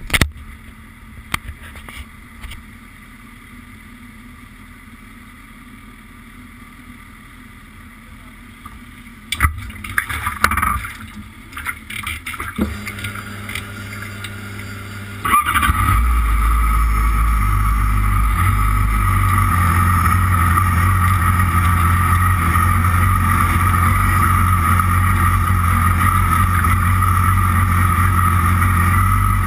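A few knocks and rustles of handling, then about halfway through the Yamaha R6's inline-four engine starts and settles into a steady idle, loud and even to the end.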